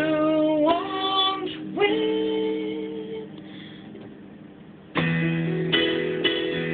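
A woman singing, ending on a long held note over a digital piano; the sound dies away, then about five seconds in the piano comes back in with loud repeated chords.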